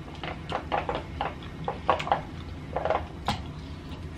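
Close-miked eating sounds from a seafood boil: a string of short, irregular wet smacks and clicks from chewing and handling crab and shrimp, over a faint steady low hum.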